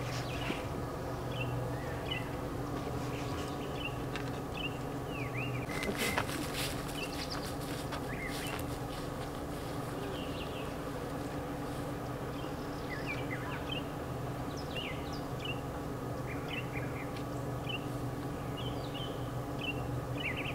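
Backyard birds chirping in short, scattered calls over a steady low hum, with a brief cluster of clicks about six seconds in.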